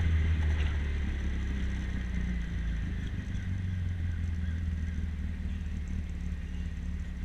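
A 1958 MGA Twin Cam roadster's twin-overhead-cam four-cylinder engine running as the car slows for a junction, its note dropping about two and a half seconds in, with road and wind noise of the open car.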